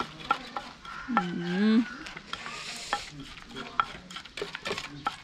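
Wooden pestle pounding and scraping in a clay mortar, irregular dull knocks two or three times a second, as fresh shrimp, ripe hog plum, fish sauce and herbs are pounded together. A brief voice sound comes in about a second in.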